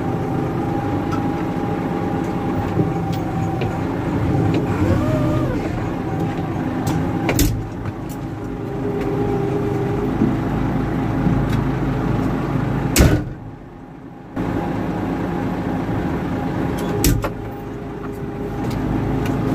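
Large forklift's engine idling steadily, heard from inside the cab, with a few sharp knocks from the cab door and fittings as the driver climbs out. Past the middle the sound cuts out for about a second and a half, then the idle resumes.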